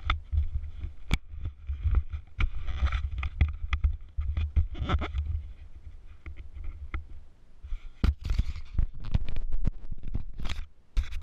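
Footsteps crunching on gravel, with scrapes and clicks of handling and a steady low rumble on the microphone. No engine is running.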